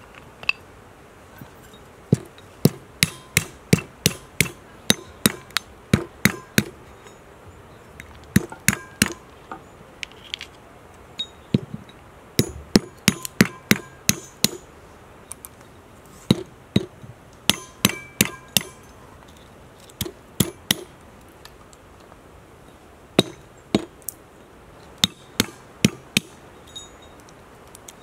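Walnuts being cracked with a brass pestle on the flat top of a brass mortar: sharp knocks in quick runs of several strikes, some with a short metallic ring as the shells break.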